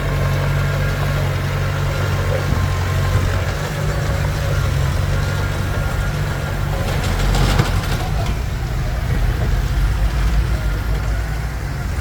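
Komatsu D21P bulldozer's diesel engine running steadily at low revs, with a brief louder clatter about seven seconds in.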